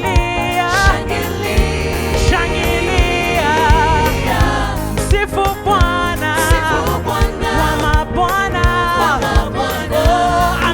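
Gospel praise song: a choir singing with vibrato over a band with a steady beat and bass.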